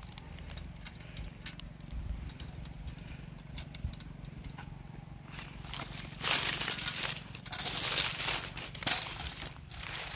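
A metal coconut-tree climbing device and its chain being fitted around a palm trunk: light metallic clicks and clinks, then louder scraping from about six seconds in, with a sharp clank near nine seconds.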